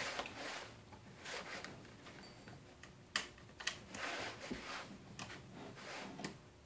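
Scattered light metallic clicks and rattling from an 18-inch saw chain being fitted onto a chainsaw bar by hand, a few sharper clicks in the middle and near the end.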